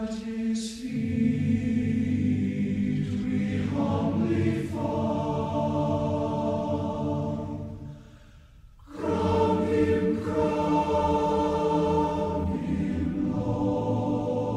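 A choir singing long, held chords as background music. It fades briefly about eight seconds in, then comes back in.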